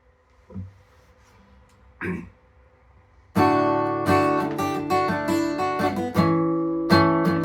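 Two faint short knocks, then about three and a half seconds in an acoustic guitar starts strumming chords, the intro to a song.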